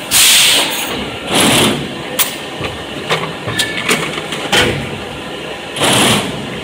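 Fully automatic 4-cavity PET bottle blow moulding machine cycling: loud hisses of compressed air venting, one right at the start, one about a second and a half in, and one near the end, with sharp pneumatic clacks of the moving mechanism in between, over a steady machine hum.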